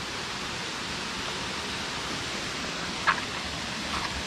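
Flowing river water making a steady, even rush, with a couple of faint short clicks near the end.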